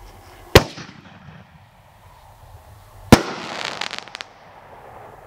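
Excalibur consumer artillery shell firing: a sharp bang about half a second in as the shell lifts from its tube, then a second loud bang as it bursts in the sky, followed by about a second of crackling with several sharp pops.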